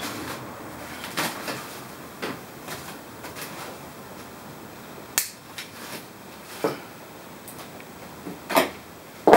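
Scattered clicks, snips and rustling as packing material and zip ties are cut and pulled off a new mountain bike in its cardboard shipping box. Sharper clacks come about five seconds in and near the end.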